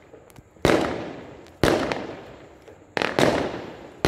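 Aerial fireworks bursting: about five sharp bangs roughly a second apart, each trailing off in an echoing decay.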